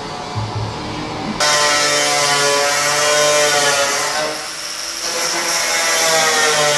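For about the first second and a half, background music. Then an angle grinder with a thin cut-off disc starts cutting through a car's sheet-steel wheel arch: a loud motor whine over a hissing screech of metal. The whine sags briefly in the middle and picks up again.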